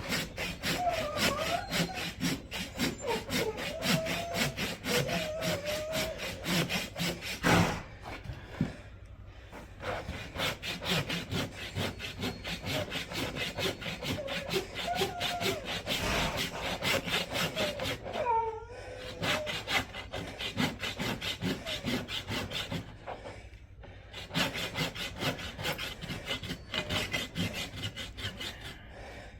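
A saw cutting through a horse's badly overgrown, curled-up hoof with rapid back-and-forth strokes, pausing briefly twice.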